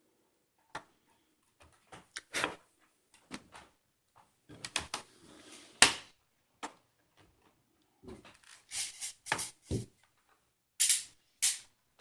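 Plastic laptop being taken apart by hand: irregular clicks, taps and knocks of case and keyboard parts and tools, with a loud knock about six seconds in and two more near the end.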